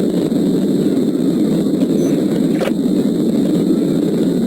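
Steady road and wind noise inside a police patrol car travelling at well over 100 mph, with one short click a little past halfway.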